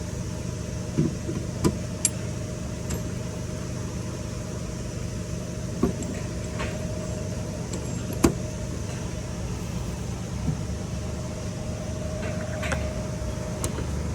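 Steady hum of auto-shop background noise with a faint steady tone, broken now and then by short sharp clicks and clinks of metal hand tools being handled.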